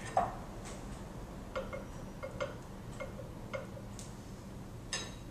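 A spoon clinking against a glass mixing bowl while scooping thick filling: a sharp click at the start, then a run of about ten small ringing taps through the middle. A faint steady hum lies underneath.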